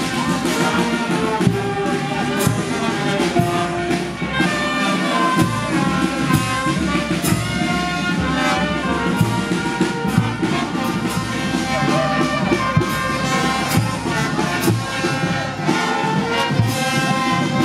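Brass band music: trumpets and trombones playing a melody of held notes over a steady beat of percussion hits.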